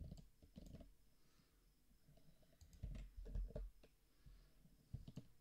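Faint clicks and taps of a computer mouse and keyboard in use, a few scattered strokes with a small cluster about three seconds in, some with a low thump.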